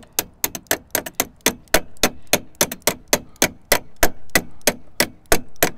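Rapid light hammer taps, metal on metal, about four a second in a steady run, driving the pin into a car's door check (door stop) so it goes in.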